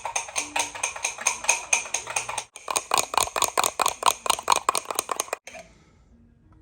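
Rapid, even clicking at about five strokes a second, broken by a short gap about two and a half seconds in and stopping shortly after five seconds.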